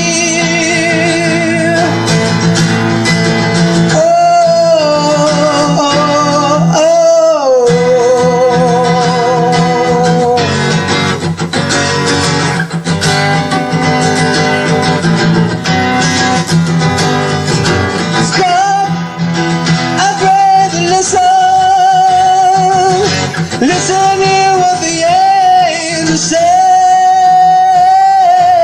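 A song: a singer holds long notes with vibrato over instrumental backing.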